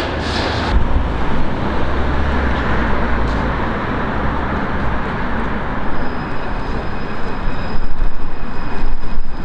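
LiAZ-677M city bus's V8 petrol engine running as the bus drives toward the microphone, getting louder near the end, with a faint high whine coming in about six seconds in.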